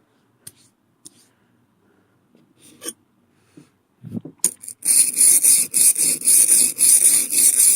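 A few light clicks and knocks, then, from about five seconds in, a steel blade scraping back and forth on a water-lubricated sharpening stone at about four strokes a second.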